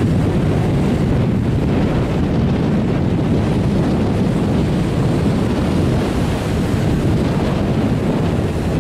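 Strong wind buffeting the microphone over storm waves breaking and splashing against a concrete jetty.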